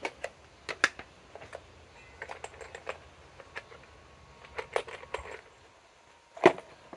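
Small metal hardware clinking and rattling as it is picked through by hand in a plastic tub, in scattered light clicks, with one louder knock near the end.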